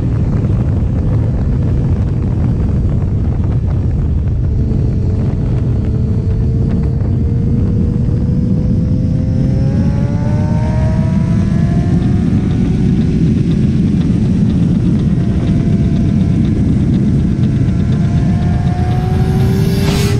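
Heavy wind rush on the microphone of a moving sport motorcycle, with the engine's note climbing slowly in pitch as it accelerates, once through the middle and again near the end.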